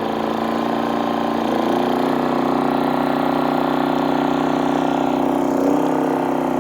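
GENMAX GM3500Xi inverter generator's 145cc four-stroke OHV engine running steadily under about 2,000 watts of lights. Its pitch rises a little about one and a half seconds in as it speeds up to carry the load.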